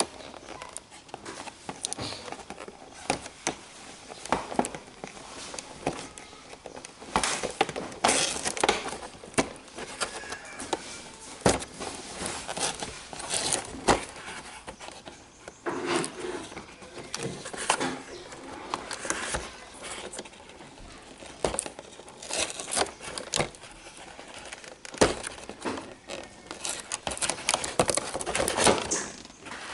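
Irregular handling noise: scattered clicks, knocks and crinkling rustles, with a busier spell near the end.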